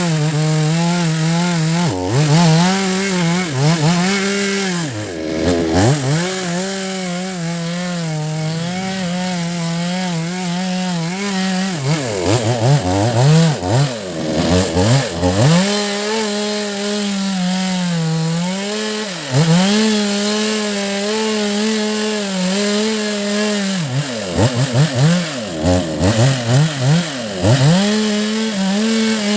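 Chainsaw running near full throttle while cutting rain tree roots, its engine pitch repeatedly dropping and picking back up as the chain meets and leaves the wood.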